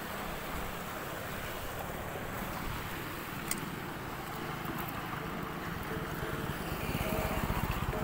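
Steady outdoor rushing noise, like wind on the microphone, with a single sharp click about three and a half seconds in. Near the end a low, rapid, even pulsing comes in and grows louder.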